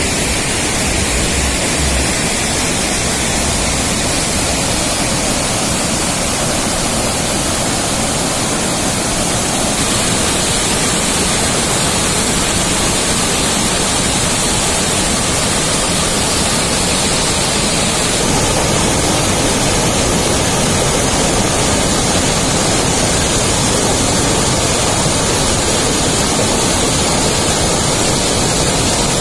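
Loud, steady rushing of white water from a waterfall pouring over rocks and a dam spillway.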